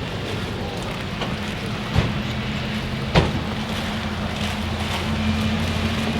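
Vehicle engine idling steadily, with two sharp knocks about two and three seconds in.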